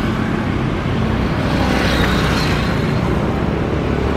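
Jet engines of a Boeing 737 on final approach to land: a steady rumble with a faint high whine about halfway through.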